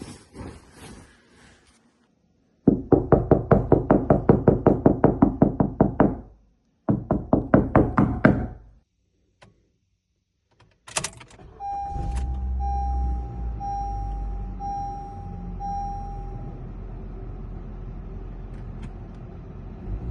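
Foley sound effects: two runs of rapid knocking, about six knocks a second. About 11 seconds in comes a door clunk, then a steady low rumble like a car engine, with a chime beeping five times about a second apart.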